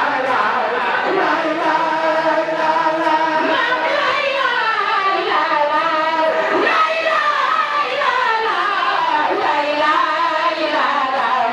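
A large group of women singing a devotional chant together, many voices carrying a melody that rises and falls without pause.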